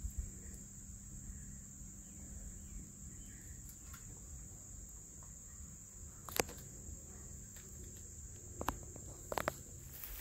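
Faint, steady high-pitched trilling of insects in chorus. A sharp click comes about six seconds in, and a few more near the end.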